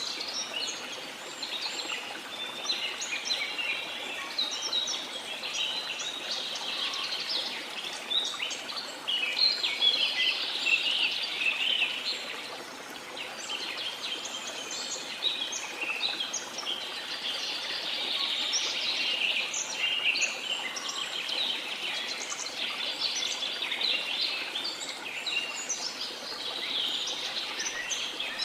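Many small birds chirping and twittering at once, in a dense, unbroken chorus, over a steady wash of sea noise.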